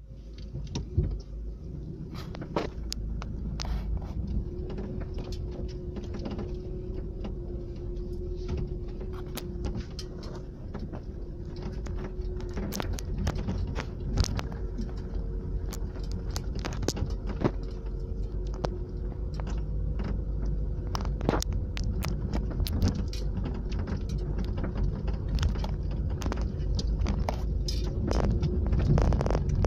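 Car cabin noise while driving over a bumpy sandy dirt track: a steady low rumble of engine and tyres, with frequent clicks, knocks and rattles as the car jolts over the ruts.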